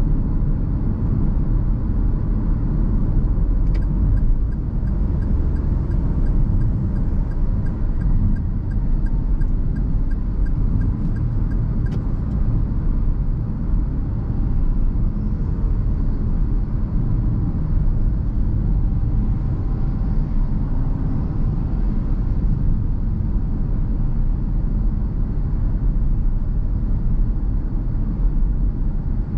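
Steady in-cabin road noise of a 2021 Perodua Ativa 1.0 Turbo cruising at speed: a low rumble of tyres and its turbocharged three-cylinder engine. A faint regular ticking runs for several seconds about four seconds in.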